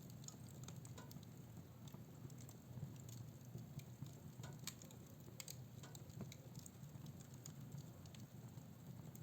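Fireplace fire crackling faintly, with irregular small pops and snaps over a low steady rumble.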